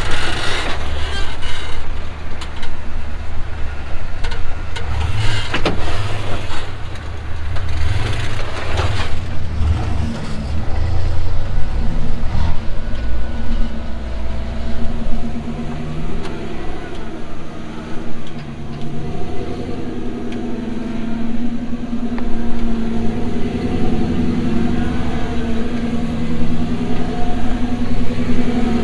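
Rock-crawling buggy's engine running at low, varying revs. In the first ten seconds or so there are several sharp knocks or scrapes.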